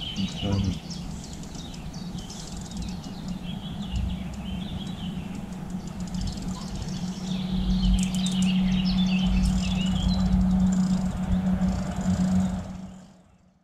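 Songbirds chirping over a steady low hum that grows louder in the second half, with low rumbling handling noise; everything fades away just before the end.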